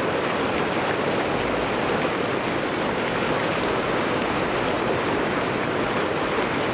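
River water rushing with a steady, even noise.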